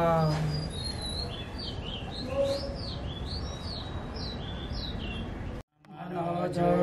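A small bird chirping, a rapid series of short high notes, each sliding up and then down, about three a second for some four seconds.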